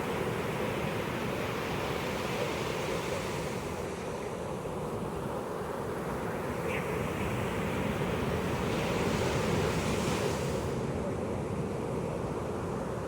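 Ocean surf on a beach: waves breaking and washing in, a steady rushing with a wash swelling about nine to eleven seconds in, and some wind on the microphone.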